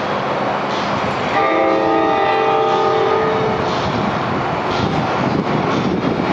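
An approaching New Jersey Transit train sounds its horn, a chord of several steady tones held for about two and a half seconds starting just over a second in. Then the running noise and clatter of the train rolling in fill the rest.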